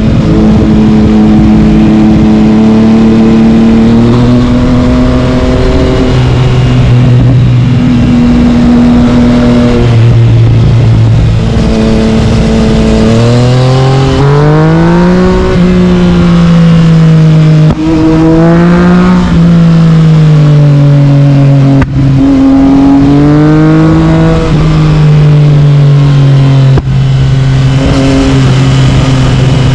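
Yamaha MT-09's inline-three engine through an Akrapovic carbon-fibre exhaust, ridden hard. It holds a steady note for a while, then its pitch climbs and falls repeatedly with the throttle. Three times in the second half the sound drops out for an instant, as at a quick gear shift.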